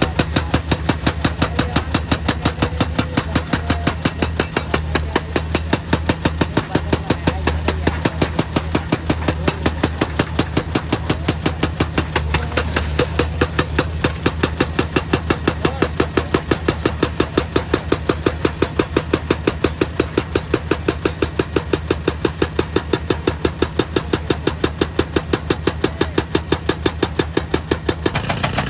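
Hydraulic rock breaker on a JCB excavator hammering rock in a rapid, even rhythm, over the steady running of the excavator's diesel engine.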